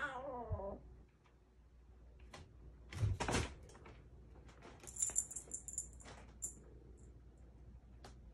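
A Bengal kitten gives a short mew that falls in pitch right at the start. A thump follows about three seconds in, then about a second of high scratchy rustling around five seconds in as she climbs the bunk-bed frame.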